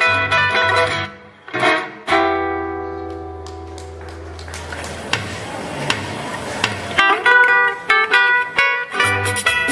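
Requinto guitar, amplified through a street loudspeaker, playing Ecuadorian music. Picked melody notes give way to a held chord about two seconds in that rings out and fades. After a hissy, noisy stretch in the middle, quick picked runs start again near seven seconds.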